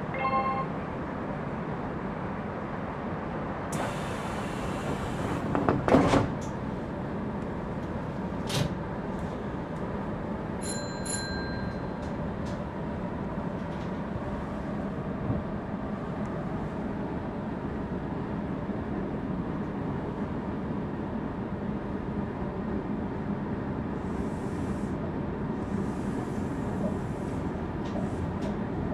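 Electric commuter train standing with its doors open: a hiss of air about four seconds in, then a loud thud as the sliding doors close, a click, and a short electronic tone. A steady hum of the train's equipment follows, and the train pulls away near the end.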